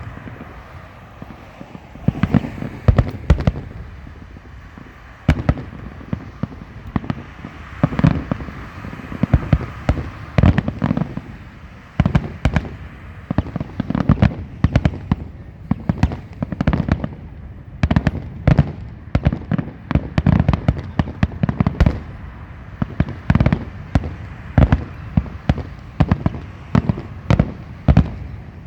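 Fireworks grand finale: a rapid, continuous barrage of aerial shell bursts, loud bangs in quick irregular succession with rumbling echoes between them.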